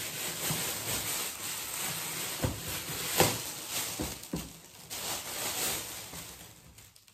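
Metallic foil gift wrap crinkling and rustling as it is torn away and handled, with a few sharper crackles about halfway through, dying down near the end.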